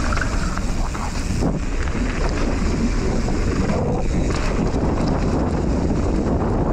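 Wind rushing over the microphone together with the rolling rumble of mountain-bike tyres on a loose dirt and gravel trail during a descent.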